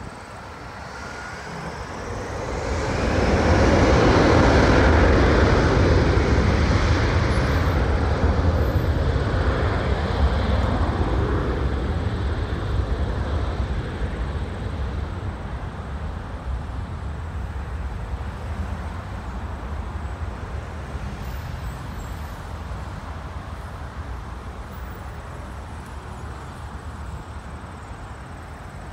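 Jet airliner taking off: the engines spool up with a rising whine, then a loud roar that peaks a few seconds in and slowly fades as the plane climbs away. Steady highway traffic rumbles underneath.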